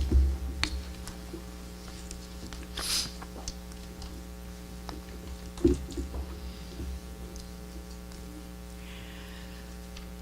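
Steady electrical mains hum through the sound system, with scattered small clicks and two low thumps, at the start and a little before halfway, and a brief hiss about three seconds in.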